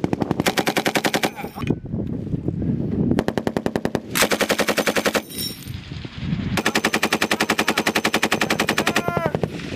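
M240B 7.62 mm machine gun firing three bursts of one to two seconds each, with short pauses between them.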